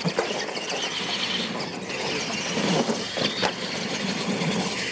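Radio-controlled monster trucks racing side by side on a dirt track, their motors whining and tyres churning the dirt, with faint rising whines about halfway through.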